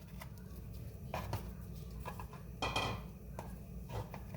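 A few light clinks and knocks of a kitchen utensil against a frying pan, spaced irregularly, over a low steady hum.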